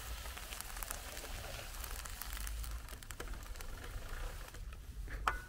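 White Swiss Shepherd dog gnawing a wooden stick: irregular crackling and clicking of the wood under its teeth, with a short high squeak near the end.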